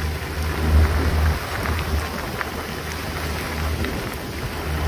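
Heavy rain pelting a sailing yacht in a squall, a dense steady hiss of drops. Gusting wind of about 30 knots adds a low rumble that comes and goes, strongest in the first second or so.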